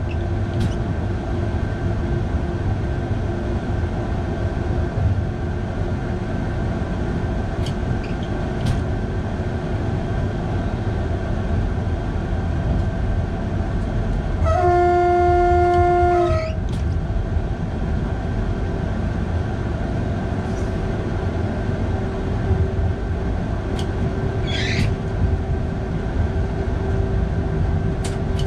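Electric passenger train climbing the Flåm Line, heard from its driver's cab: a steady low running rumble with a constant motor hum. About halfway through the train horn sounds once, a single steady tone for nearly two seconds, the loudest thing here; a brief high squeal follows near the end.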